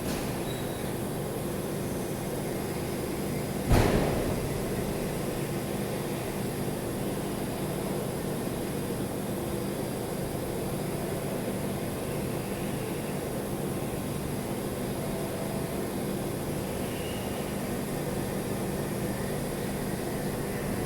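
Steady hum and hiss of welding equipment running, with one sharp metallic knock about four seconds in that rings briefly.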